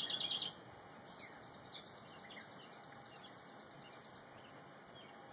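Songbird calling: a loud, rapid run of high chattering notes cut off about half a second in, then a faint, fast trill for about three seconds.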